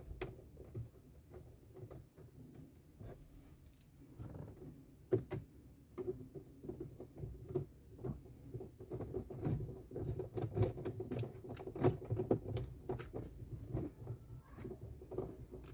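Last mounting screw of a car stereo being driven in under the dashboard: irregular small clicks and scratches, getting busier about halfway through.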